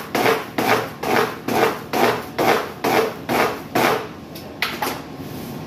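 Spiked pizza dough docker rolled back and forth over raw dough on a wooden board, making a rhythmic run of rubbing strokes, about two a second. The strokes stop about four seconds in, followed by a couple of light knocks.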